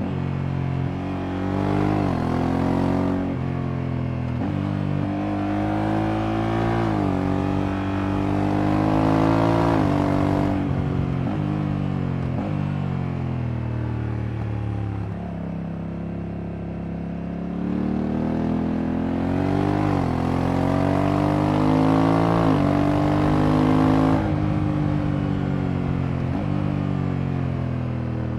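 Honda Africa Twin Adventure Sports' parallel-twin engine accelerating through the gears: its pitch rises and then drops sharply at each automatic DCT gear change. About halfway it eases off and the engine note falls, then it pulls up through the gears again.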